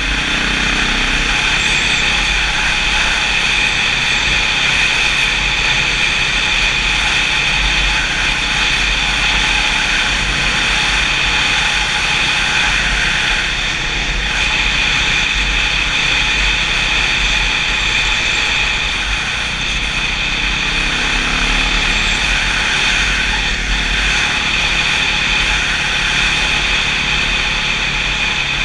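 Enduro motorcycle engine running at a steady pace under way, heard from the rider's helmet camera.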